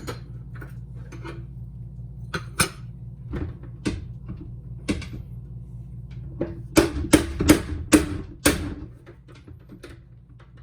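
Door handle and latch parts being handled and fitted: a string of sharp clicks and knocks, with five louder ones close together past the middle, over a steady low hum.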